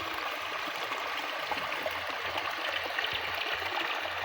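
Water of a shallow stream running steadily down a low-flowing waterfall, an even rushing sound.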